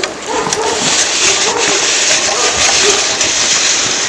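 Small wheeled push cart rolling and scraping through snow, with crunching footsteps, as one steady run of noise and a few short squeaks.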